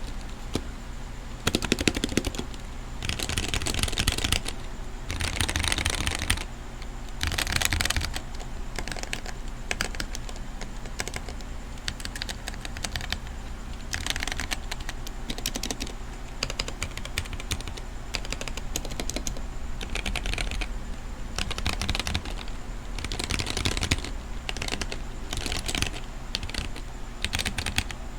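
Typing on a Womier K66 60% mechanical keyboard with Gateron red linear switches: fast runs of key clacks in bursts of a second or two, with short pauses between them.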